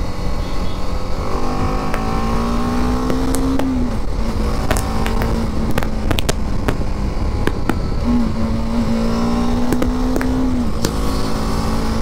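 BMW G 310 GS's single-cylinder engine pulling under acceleration: its pitch rises, drops suddenly about four seconds in as it shifts up, holds steady, then rises again and drops once more near the end. Heavy wind rush on the microphone and scattered sharp ticks run underneath.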